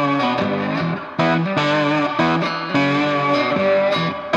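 Background music led by an electric guitar, with the chords changing every half second or so.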